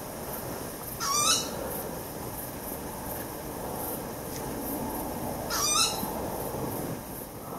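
An owl calling twice, about four and a half seconds apart: each call is short, sharp and high, rising quickly in pitch. A steady low background noise runs underneath.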